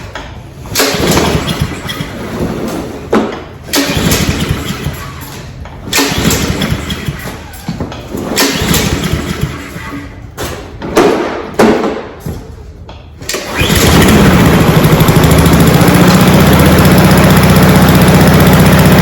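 Honda GCV190 mower engine on choke in a cold start, stumbling and firing in uneven bursts for most of the time. Near the end it catches and settles into a steady, loud run. The owner puts the rough running and smoke down to a lot of oil in the cylinder.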